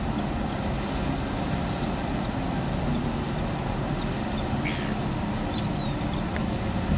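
Steady low rumble of a harbour tug's diesel engine working as it pushes a ship. A few short, high bird chirps sound over it.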